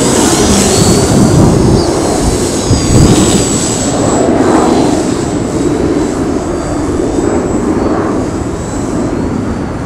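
Electric motor and propeller of a Yak 54 3D EPP foam RC airplane giving a thin whine whose pitch wavers up and down with the throttle, under a louder low rush of wind noise on the microphone.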